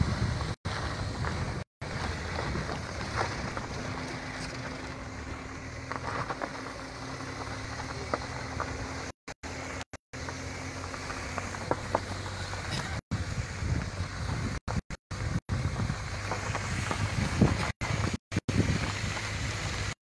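Wind buffeting the phone's microphone from a moving vehicle on a dirt road, with the vehicle's rumble underneath. A steady low hum runs through the middle, and the sound cuts out briefly several times.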